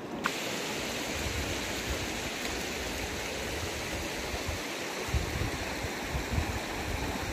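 Steady rush of a shallow river running over stones and cobbles, with a few brief low bumps in the second half.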